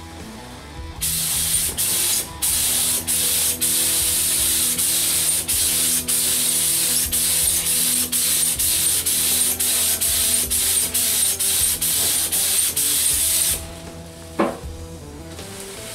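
Gravity-feed paint spray gun spraying on compressed air. The loud, steady hiss starts about a second in and is broken by many short pauses as the trigger is let off and pulled again. It stops a little before the end, and a single sharp knock follows.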